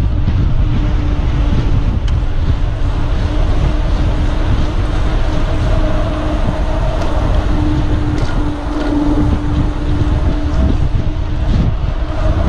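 Wind buffeting the microphone of a mountain biker's action camera on a fast downhill run on asphalt. Under it is a steady hum from the bike rolling at speed, a little stronger about eight seconds in.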